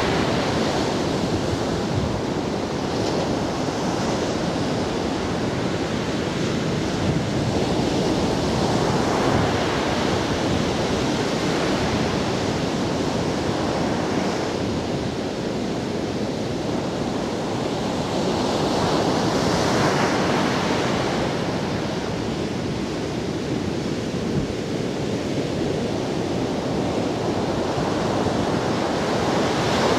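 Ocean surf breaking on a sandy beach: a steady wash of waves, swelling every several seconds as each breaker crashes and runs up the sand. Wind on the microphone adds to the rush.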